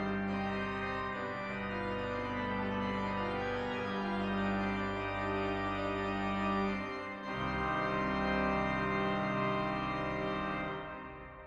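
Organ music playing sustained chords, moving to a new chord about seven seconds in and fading out near the end.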